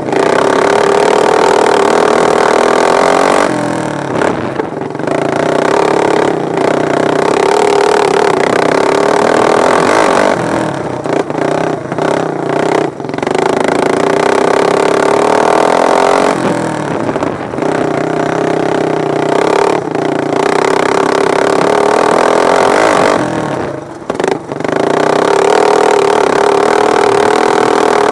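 Racing lawn mower engines running hard at high revs. The sound dips and the pitch sags every few seconds, then climbs back to full throttle.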